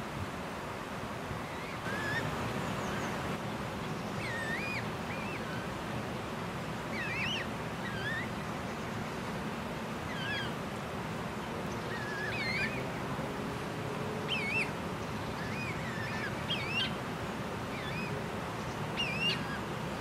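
A bird calling repeatedly: short chirping notes that rise and fall in pitch, one every second or two, over a steady outdoor hiss.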